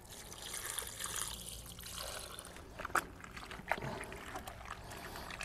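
Water pouring in a steady trickle from a glass jug into a cast-iron kazan of raw meat and onions, with two light clicks about three seconds in.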